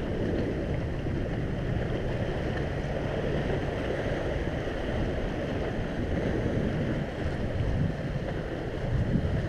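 Wind buffeting the microphone in a steady low rumble, over waves washing among the concrete tetrapods of a seawall.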